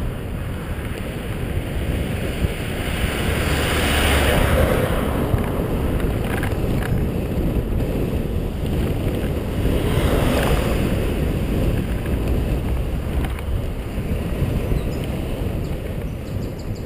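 Wind rushing over a helmet-mounted GoPro HD Hero's microphone while riding along a road, mixed with road noise. It swells louder twice, about four and ten seconds in.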